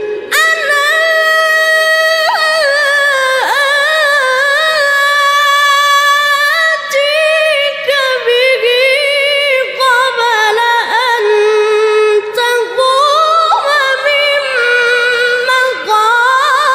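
A Quran reciter's voice in melodic mujawwad recitation, held in a high register: one long ornamented phrase with wavering turns and brief breaths, climbing higher near the end.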